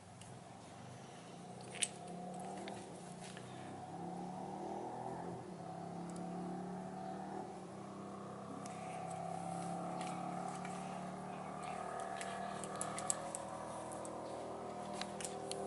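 A steady engine-like hum with a few held tones, swelling louder partway through. Over it come a few sharp metallic clicks as a rocker arm assembly is handled.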